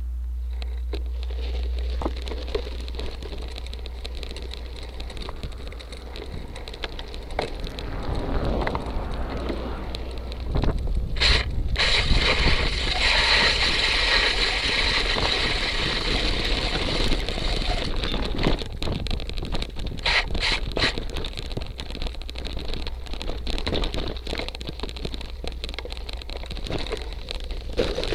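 Cyclocross bike ridden over a rough dirt and gravel trail: a steady crackle of tyre noise and rattling over the ground, with wind rumbling on the microphone. The rattle grows louder about a third of the way in, with a stronger hiss for several seconds in the middle.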